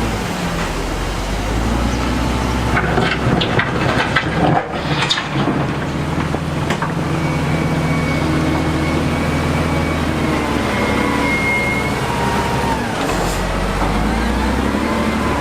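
Diesel engine of heavy construction machinery running, its pitch shifting as it works. There is a burst of clattering knocks about three to five seconds in.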